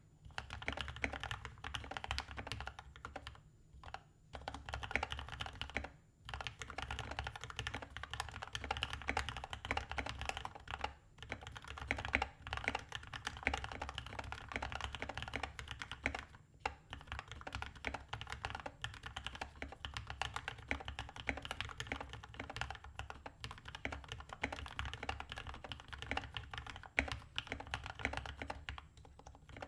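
Steady fast typing on a Skyloong GK61XS 60% mechanical keyboard with lubed, filmed Gateron Milky Yellow linear switches and foam and tape mods, sitting on a desk mat: a dense run of keystrokes broken by a few brief pauses.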